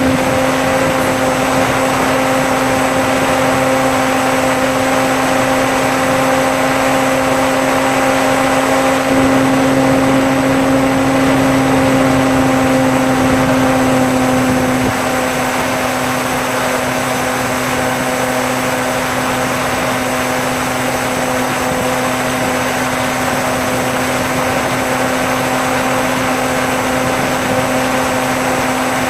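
Bixler RC plane's electric motor and pusher propeller running steadily in flight, heard from the onboard camera as a droning whine over air noise. The throttle goes up slightly about nine seconds in and eases back about halfway through.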